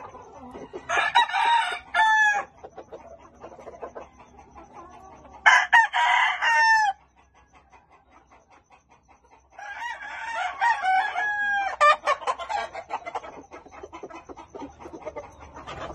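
Roosters crowing three times, each crow lasting a second or two, about four seconds apart, with quieter clucking between.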